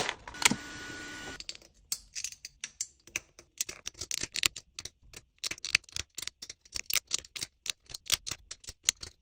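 A run of short, sharp, irregular clicks, several a second, like typing on a keyboard.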